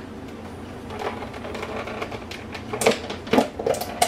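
Plastic tub of salad dressing being handled: a rustle, then a run of sharp clicks and knocks from the lid, the loudest near the end.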